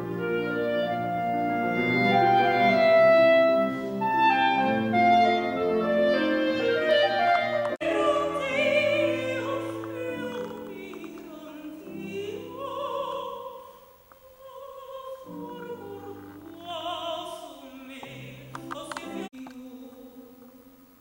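A woman sings in classical operatic style to grand piano accompaniment. The music is broken by abrupt edits about eight seconds in and again near the end.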